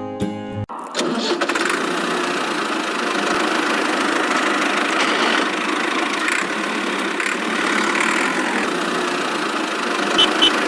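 A small motor running steadily after a short bit of guitar music cuts off under a second in, with two short clicks near the end.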